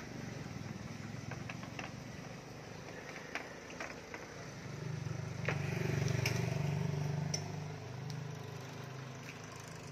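A motor vehicle's engine running with a steady low hum. It swells louder for a few seconds past the middle, as a vehicle passing on the road would, then eases off, with a few light clicks and knocks.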